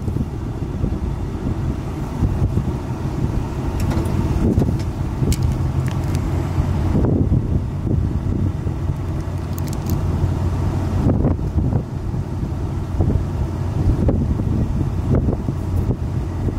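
Strong storm winds gusting and buffeting the microphone, with a steady low rumble underneath.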